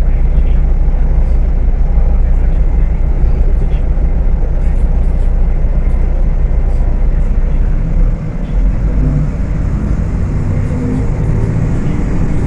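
Volksbus 18.280 OTS bus engine running under way, a heavy low rumble. About eight seconds in the note dips and settles at a different pitch, as when the driver shifts gear or eases off.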